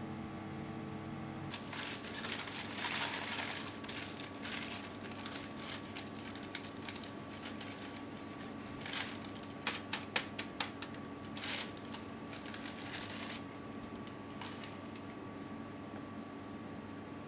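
Rustling paper and light tapping as cake flour is tipped from a paper sheet into a metal mesh sieve, with a quick run of sharp clicks about ten seconds in. Near the end a faint hiss as granulated sugar is poured into the sieve. A faint steady hum underneath.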